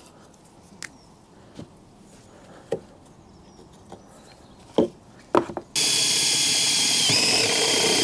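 A few scattered knocks, then about six seconds in a Makita cordless drill starts up, cutting a hole in the van's steel B-pillar with a step bit: a steady whine that shifts in pitch briefly near the end.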